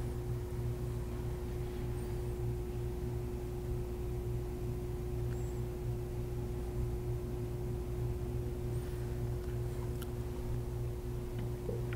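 Steady electrical hum: a low drone with a single steady higher tone above it, unchanging throughout, with a few faint light ticks.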